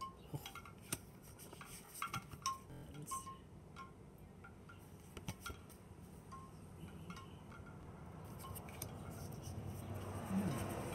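Light clicks and taps of tarot cards being handled and laid down, with faint high chime-like tinkles at irregular moments. A rushing noise builds toward the end.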